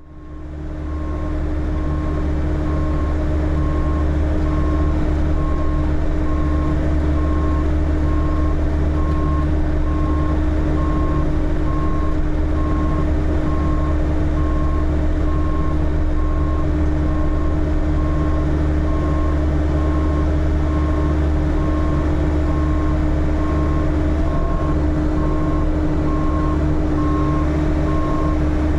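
Heavy-equipment diesel engine running steadily with a low rumble, with a regular high-pitched beeping over it that keeps on the whole time, like a backup alarm.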